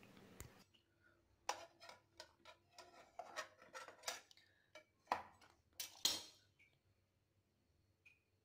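Light, irregular clinks and taps of kitchenware, about a dozen over five seconds: the baked pillow cakes being lifted out of the open sandwich maker's non-stick plates and set on a ceramic plate.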